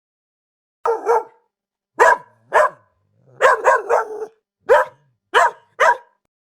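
A dog barking: about ten short, sharp barks, single or in quick pairs and triplets.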